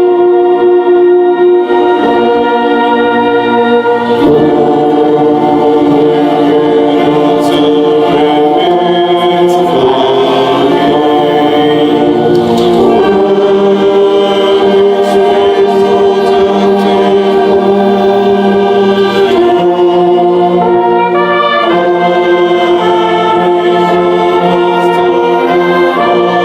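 Slow, solemn hymn-like music in long held chords: a choir singing with brass accompaniment, the chords changing every few seconds.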